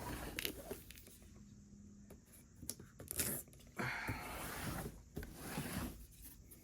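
Cardboard shipping box handled: a few light knocks, then about two seconds of scraping, rustling noise from about four seconds in.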